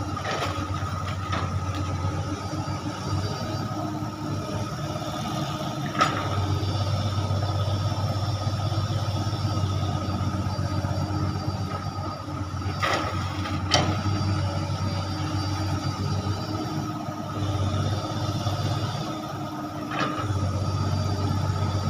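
Komatsu long-reach excavator's diesel engine running steadily while it digs mud, with a steady high tone over the low engine hum. About four sharp knocks come through, and the engine eases off for a few seconds near the end before picking up again.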